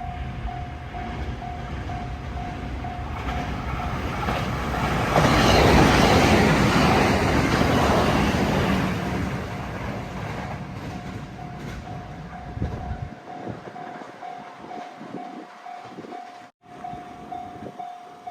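A four-car JR 521 series electric multiple unit passes over a level crossing, loudest about five to nine seconds in, then fading away. Under it the crossing warning bell rings in a steady rapid pulse, heard before and after the train's loudest moment.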